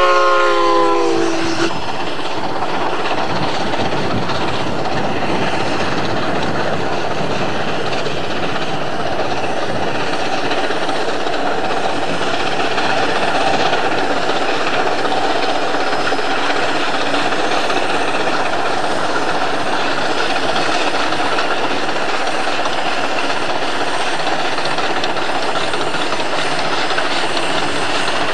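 Shay geared steam locomotive Feather River No. 3 finishes a steam whistle blast of several notes about a second in. After that, the steady noise of the locomotive working past with its train of passenger cars.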